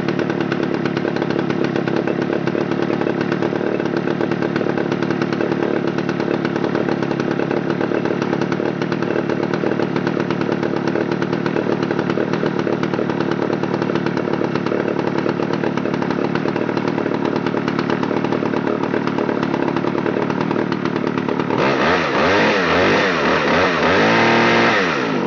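Homelite Super 650's 100cc two-stroke chainsaw engine running steadily, then revved up and down several times near the end.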